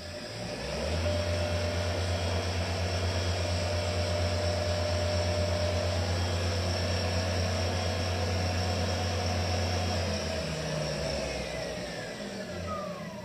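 CNC mill spindle motor on a 7.5 kW Huanyang VFD ramping up, then running steadily at full speed with a hum and a whine. About ten seconds in it winds down, its whine falling steadily in pitch, as the VFD's braking resistor stops the spindle.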